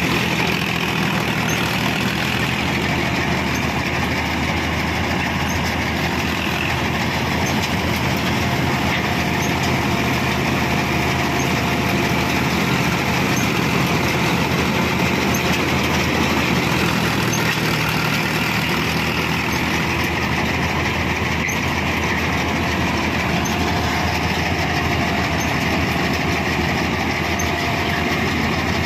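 Tractor-mounted combine harvester on a John Deere 5310 running steadily while it cuts the crop: a steady diesel engine drone mixed with the noise of the moving header and threshing gear.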